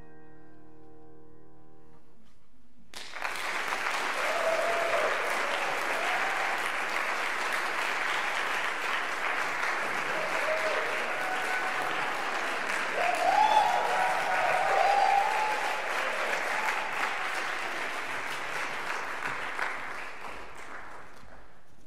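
The final oboe and piano note dies away, then audience applause breaks out about three seconds in, with a few cheers in it, and fades near the end.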